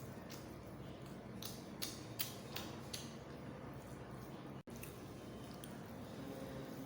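Close-miked eating sounds: chewing egg fried rice with chilli chicken curry, with several short wet clicks and smacks in the first three seconds over a steady low hum. The sound cuts out for an instant about two-thirds of the way in.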